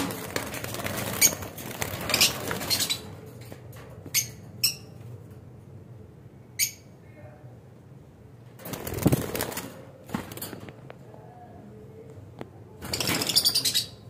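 Caged lovebirds giving a few short, sharp, high-pitched chirps, between louder bursts of rustling, scuffling noise.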